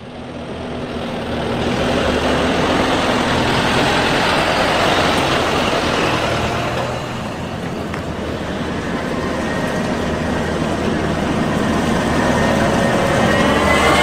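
Vishal 435 combine harvester running while it cuts and threshes wheat: a steady drone of diesel engine and threshing machinery. It fades in over the first couple of seconds and dips a little about seven seconds in.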